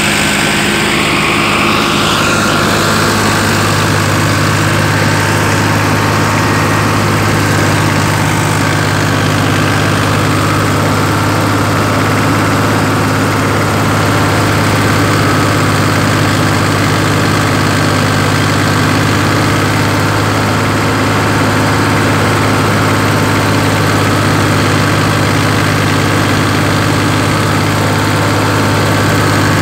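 Farmtrac 60 EPI tractor's diesel engine running steadily at high revs while driving a thresher. It is a loud, even drone whose low hum strengthens about two seconds in.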